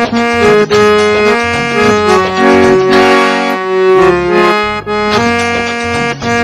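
Hand-pumped harmonium playing a song melody in sustained reedy notes over a lower held note, with one long held note near the middle.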